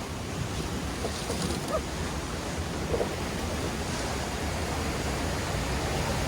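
Rushing, churning water of a river-rapids raft ride: a steady wash of water noise with wind on the microphone, slowly growing louder.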